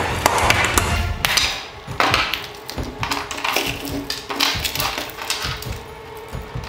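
Claw hammer blows cracking a layer of ice frozen over a tail light, followed by broken ice chunks being scraped and brushed off the plastic lens and chrome bezel by hand, over background music. The sharp cracking strikes come within the first second or so.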